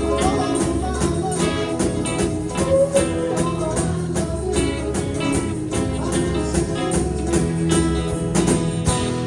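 Live band playing a song: drums keep a steady beat under bass, guitar and a tambourine.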